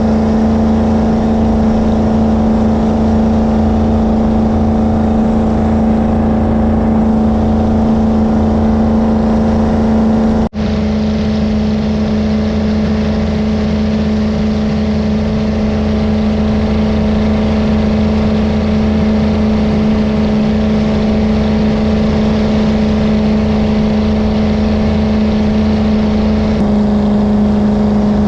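Jet boat engine running steadily at cruising speed, one even drone, with a brief break about ten seconds in. The engine note eases slightly lower near the end.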